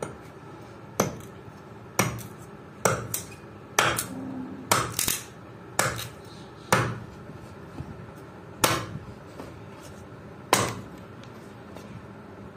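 Small steel hand axe chopping into a plank of wood: about a dozen sharp blows, roughly one a second and now and then two in quick succession, as the wood is hewn into shape.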